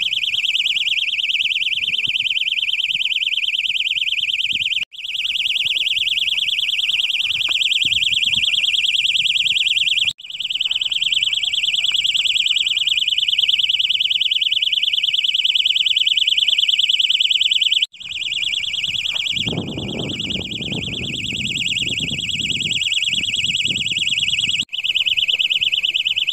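Clip-on LED fishing bite alarm sounding a continuous shrill electronic tone, set off by a fish pulling line on a run. The tone breaks off and restarts four times, and a low rumbling noise comes in for a few seconds past the middle.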